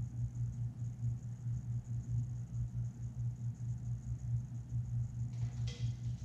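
Steady low hum throughout, its level pulsing. Near the end comes a short burst of higher-pitched noise as the two male Madagascar hissing cockroaches break apart from their grapple.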